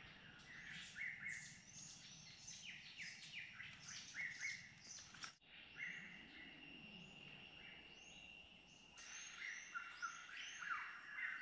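Faint birdsong: several birds chirping with quick short notes and downward-sliding whistles. After a brief break about halfway, a thin steady high tone runs beneath the calls.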